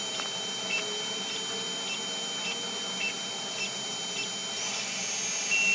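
Creality CR-10S Pro 3D printer running its automatic bed-leveling routine: a steady high whine from its motors and fans, with short high chirps about every half second as the head moves from one probe point to the next. The steady tone shifts higher a little past four seconds in.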